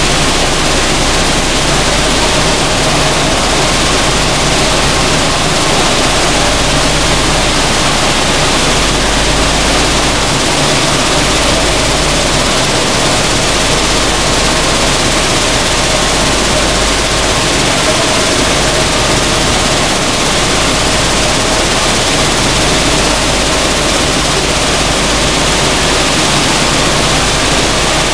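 Sunflower seed hulling machine running: a loud, steady, even noise with a faint hum and a low rumble underneath, unchanging throughout.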